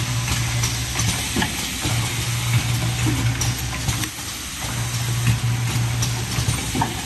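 Automatic filter-tip assembly machine running: a steady low hum from the electromagnetic vibratory bowl feeders that cuts out briefly about four seconds in, over a continuous hissing rattle of small parts and scattered sharp clicks from the pneumatic heads.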